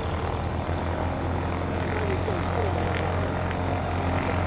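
Pietenpol Air Camper's Continental O-200 flat-four, air-cooled engine and propeller droning steadily as the light aircraft passes overhead, growing slightly louder toward the end.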